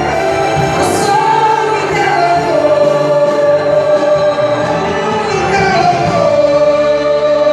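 Church orchestra with voices singing a hymn, holding long sustained notes that step down in pitch twice.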